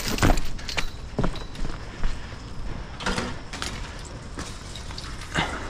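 Chain-link construction fence rattling and clanking in irregular knocks as people climb over it, over a low rumble.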